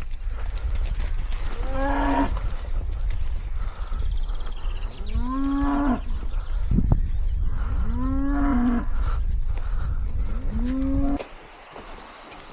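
Cattle mooing: four separate calls, a few seconds apart. A steady low rumble runs under them and cuts off suddenly near the end.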